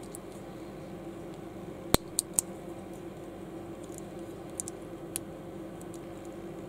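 Small Lego-compatible plastic bricks clicking as they are pressed and snapped together by hand: a sharp snap about two seconds in, two quicker clicks right after, and a few fainter clicks a couple of seconds later, over a steady low hum.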